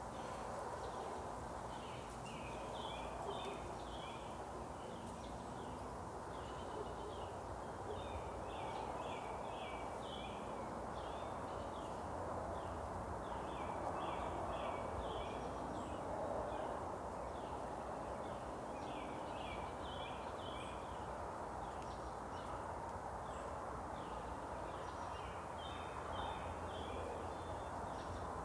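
Outdoor ambience: clusters of rapid, high chirping calls from small animals repeating throughout, over a steady low background noise.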